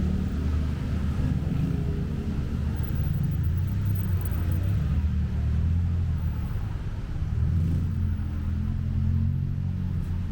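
Low rumble of motor traffic on a city street, engines swelling and fading as vehicles pass.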